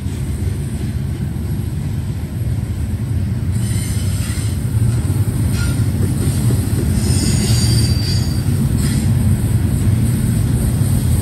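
Double-stack intermodal freight train rolling past at close range, with a steady low rumble of steel wheels on rail. From about a third of the way in, high-pitched wheel squeal comes and goes, clearest about two thirds of the way through.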